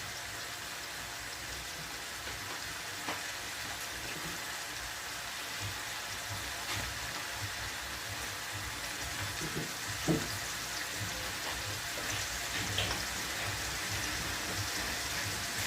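Chicken thighs frying in hot oil in a pan: a steady sizzle with a few small pops, as the first side browns.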